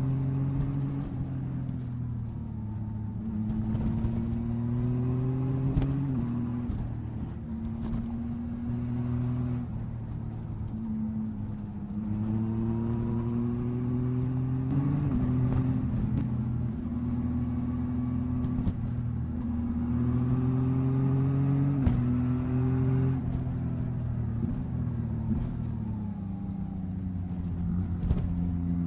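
Yamaha MT-09 SP motorcycle's three-cylinder engine under way, the revs climbing and then dropping sharply several times at gear changes, easing off and picking up again in between.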